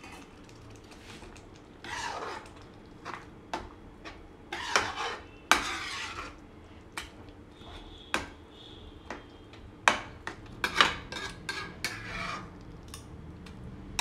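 Steel spatula stirring and scraping thick vegetable bhaji in a steel kadhai: irregular scrapes and sharp metal-on-metal clinks, starting about two seconds in.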